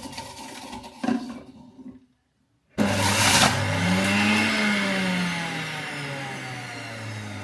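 Small electric appliance motor, such as a blender's, running steadily. It cuts out briefly and comes back loudly about three seconds in, its pitch rising and then slowly sinking as it works.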